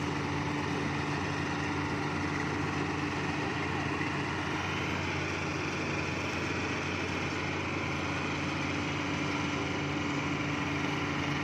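Engine of a rice-harvesting machine running steadily at constant speed, a continuous mechanical hum with no change in pitch.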